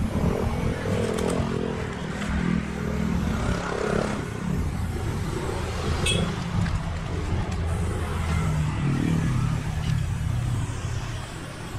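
Motor vehicles running past on a road close by, their engines rising and falling, with the hiss of an aerosol spray-paint can being sprayed on and off.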